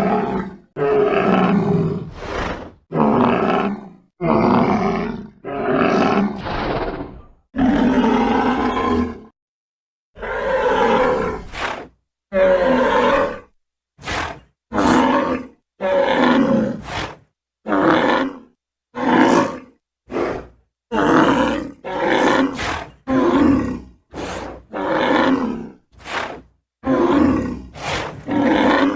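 Triceratops roar sound effects: a string of separate roars about a second long, each followed by a short silence. After about ten seconds they come shorter and quicker, with a few brief sharp sounds between them.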